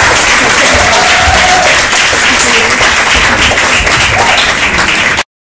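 Audience applauding and cheering, with voices calling out among the clapping; it cuts off abruptly near the end.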